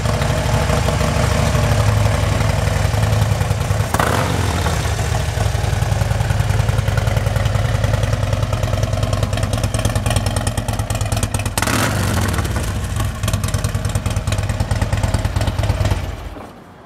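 2009 Harley-Davidson Ultra Classic's 103-cubic-inch Twin Cam V-twin running steadily at idle through Screamin' Eagle exhaust, then shut off shortly before the end.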